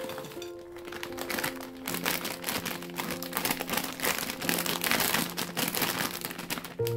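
A crinkly foil snack bag rustling as dry rye croutons are shaken out of it into a glass bowl, with a dense rattle of many small clicks from the falling pieces about two seconds in, over soft background music.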